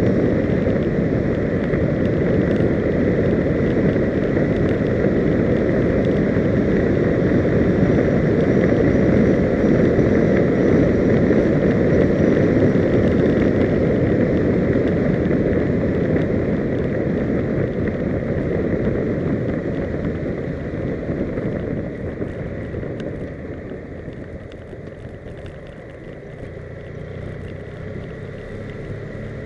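Loud, steady rush of wind over the microphone mixed with road noise from a moving vehicle, with a faint steady high whine. It grows quieter a little past two-thirds of the way through and picks up again near the end.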